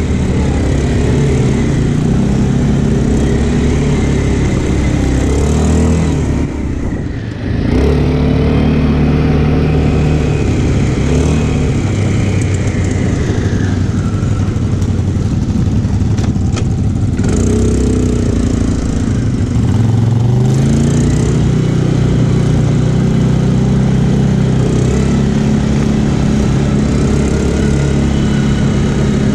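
Quad bike (ATV) engine running under changing throttle on a rough dirt track, easing off briefly about a quarter of the way through and then picking up again, its pitch rising about two-thirds of the way in. Wind noise on the microphone runs under it.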